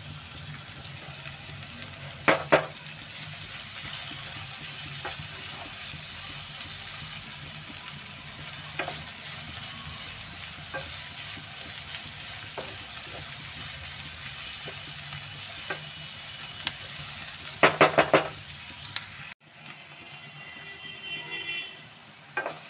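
Sliced onion, carrot and capsicum sizzling steadily in hot oil in a non-stick pan, with a wooden spatula stirring and knocking against the pan about two seconds in and again near 18 seconds. About three seconds before the end the sizzle cuts off sharply and a fainter sizzle follows.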